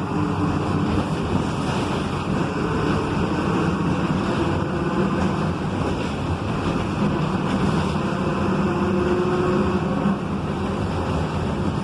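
Volkswagen 17.230 EOD bus on the move, its driveshaft and transmission droning loudly over road and wind noise, a steady drone whose pitch wavers slightly.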